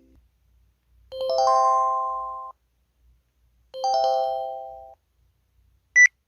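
MS500 mobile phone alert tones: two short electronic chimes, each a few stacked notes entering one after another and fading out, then a single brief high beep near the end.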